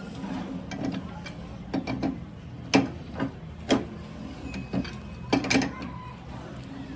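Scattered sharp metallic clicks and knocks, about eight of them, the strongest nearly 3 seconds in and around 5½ seconds, from tools and metal parts being handled on a machinist's bench over a steady low machine hum.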